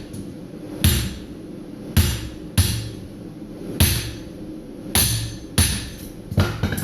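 Hammer blows on hot 5160 spring steel at the anvil, about eight sharp ringing strikes in an uneven rhythm, some coming in quick pairs.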